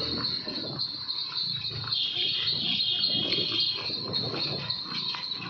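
A horse pulling a two-wheeled cart on a paved road: irregular clopping of hooves and rattling of the cart, under a steady high-pitched whine.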